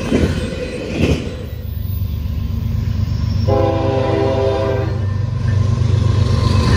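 An approaching Norfolk Southern diesel locomotive: a steady low engine rumble, with its multi-note air horn sounding one blast of about a second and a half a little past the middle. In the first second, the rolling noise of a passing freight train, with two sharp clicks.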